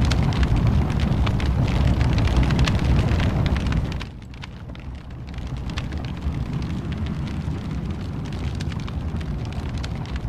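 Wood fire in a fireplace crackling with many sharp pops over a low rumble. About four seconds in, the rumble drops to a softer level.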